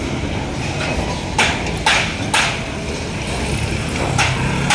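Steady rumble of road traffic, broken by a few sharp clicks, three about half a second apart in the middle and one more near the end.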